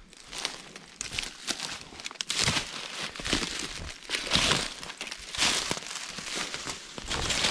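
Boots crunching and crackling through dry leaf litter and dead twigs underfoot, an irregular run of steps, loudest a little past the middle.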